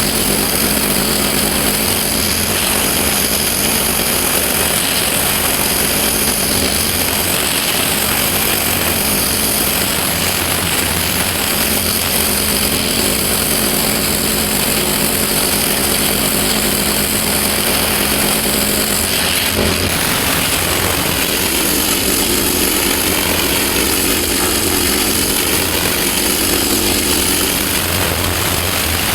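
Pressure washer running steadily, its engine droning under the continuous hiss of the high-pressure water jet blasting the block paving.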